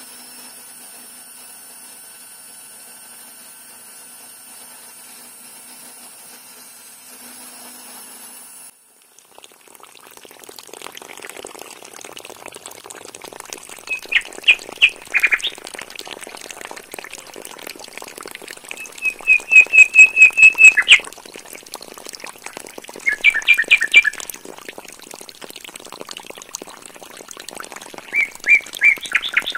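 A small DC motor driving a miniature water pump runs with a faint steady hum for the first several seconds. Then water pours from the pump's pipe outlets with a steady splashing hiss, and birds chirp over it in four short runs of quick chirps, the loudest about two-thirds of the way in.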